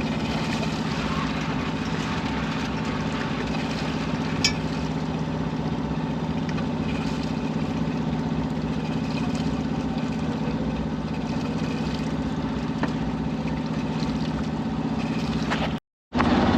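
A sailboat's inboard engine running steadily while motoring at low speed, a constant low drone. A brief click about four seconds in, and the sound cuts out for a moment near the end.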